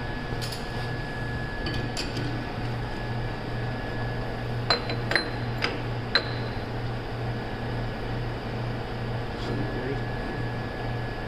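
A few light metallic clinks and taps, several close together about five to six seconds in, over a steady low hum with a faint high whine.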